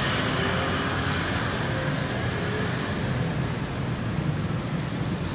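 Steady motor vehicle engine noise, a continuous hum and rush that slowly fades.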